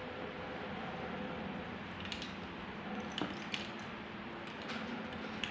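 Plastic LEGO bricks and plates being pulled apart and set down on a cloth-covered table: a few short sharp clicks over a steady background hiss.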